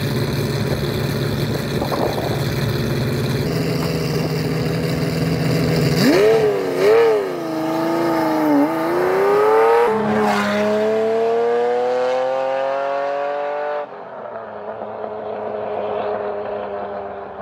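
Ferrari Testarossa's flat-12 engine idling, then pulling away: the revs rise, drop at a gear change about ten seconds in, and rise again. Near the end the engine note drops abruptly to a quieter, steady tone.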